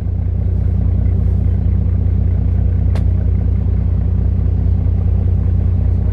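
Boat's inboard engine running steadily under way, heard on deck as a loud, even low rumble. A single short click sounds about three seconds in.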